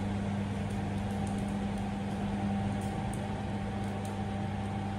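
Steady mechanical hum inside a lift car: an even low drone with a faint higher tone over it.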